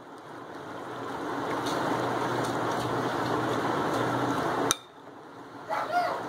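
Metal spoon mixing spice-coated raw chicken livers in a glass bowl: a steady wet squelching and stirring with knocks of the spoon against the glass. It stops abruptly with a click about two-thirds through and comes back about a second later.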